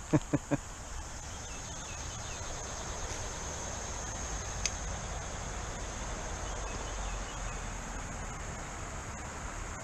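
Insects droning steadily on one even high tone. A few sharp clicks come in the first half-second, and one more about halfway through.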